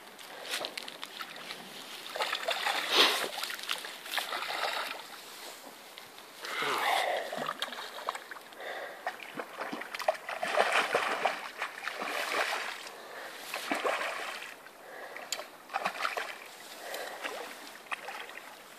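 Hooked salmon thrashing and splashing at the water's surface close to the bank while being played to the net, in irregular bursts.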